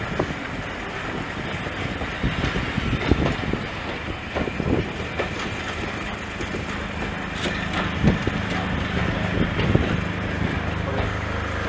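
British Railways Mark 1 passenger coaches rolling slowly past, with a steady rumble and irregular clunks from the wheels passing over rail joints. A steady low engine hum comes in about halfway through.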